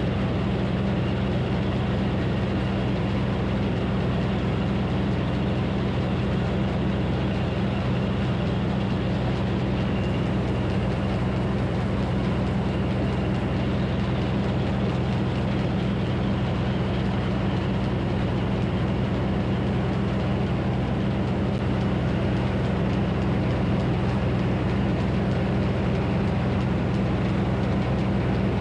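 Minneapolis Moline HEB 605-cubic-inch engine running at a steady speed, driving the circular sawmill. It is not under cutting load, and the steady drone does not change.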